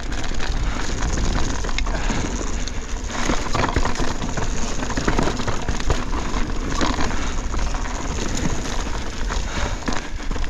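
2024 Pivot Switchblade full-suspension mountain bike descending a rough trail: tyres crunching over rocks and dirt, with the chain and bike rattling in a steady stream of small clicks. Wind rumbles on the chest-mounted camera's microphone throughout.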